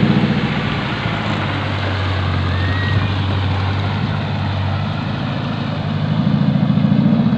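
Off-road 4x4's engine running steadily as it wades through a river, with water churning and splashing around the wheels; the engine gets louder near the end.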